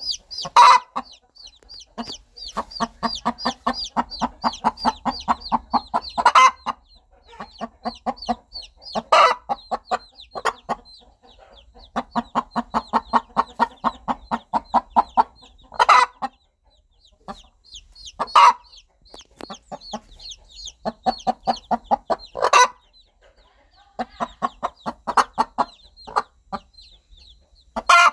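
Mother hen clucking to her chicks in runs of rapid, evenly spaced clucks, about six a second, broken now and then by a louder, sharper call. The baby chicks peep faintly and steadily in the background.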